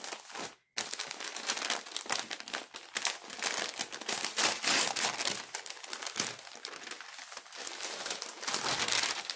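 Paper wrapping around folded clothes being opened and handled, a continuous crinkling and rustling made of many small crackles.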